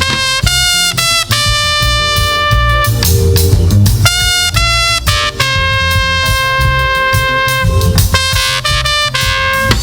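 Live gospel band playing an instrumental passage: a brass-sounding lead plays short phrases and long held notes over drums and bass.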